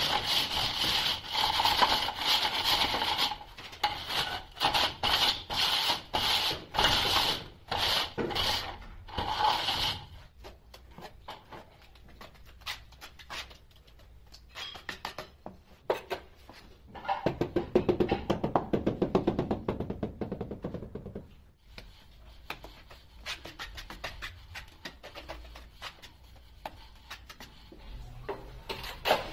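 Wooden straightedge dragged over fresh cement render on a wall: harsh, rhythmic scraping strokes, about one and a half a second, for the first ten seconds. A little past halfway comes a shorter, lower run of scraping as a trowel spreads cement mortar onto the back of a wall tile.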